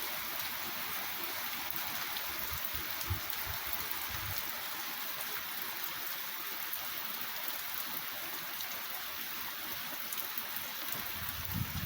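Heavy hurricane rain pouring down steadily, an even hiss.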